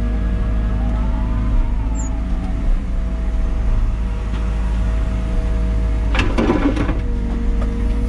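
Liebherr 914 Compact wheeled excavator's diesel engine and hydraulics running steadily, heard from inside the cab, with a hydraulic tone that rises and falls in the first few seconds as the arm moves. About six seconds in there is a short, gritty burst of the bucket scraping into dirt and stones.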